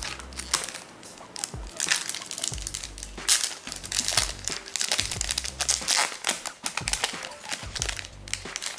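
Foil trading-card pack wrapper crinkling as it is handled and torn open by hand, in a dense run of crackles.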